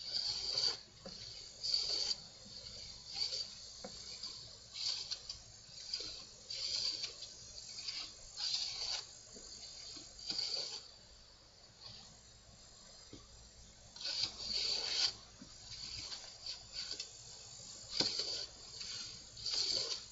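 Hand plane taking shavings off a wooden workbench leg: a string of short hissing strokes, about one every second or two, with a longer stroke about two-thirds of the way through.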